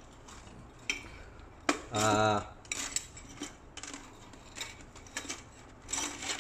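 Loose metal airsoft gearbox springs clinking and rattling inside a plastic container as it is picked up and handled, a run of small clicks and knocks. A brief hum from a man's voice about two seconds in.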